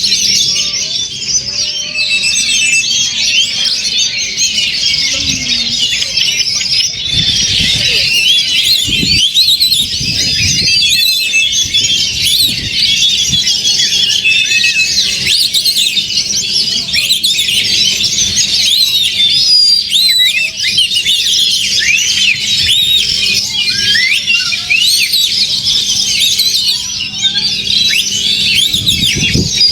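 Many oriental magpie-robins (kacer) singing at once: a dense, continuous tangle of fast whistles, trills and chirps, with a faint steady low hum underneath.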